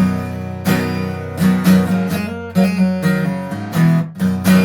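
Acoustic guitar strummed in a steady rhythm, a short instrumental passage with no singing.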